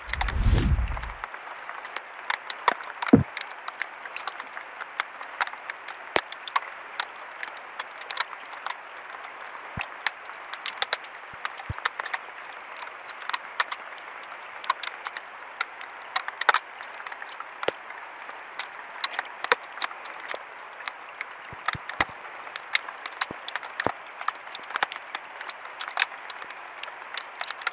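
Steady rain falling on the water and the wooden canoe: an even hiss with many scattered sharp ticks of drops hitting close by. A low thump sounds near the start and a single knock about three seconds in.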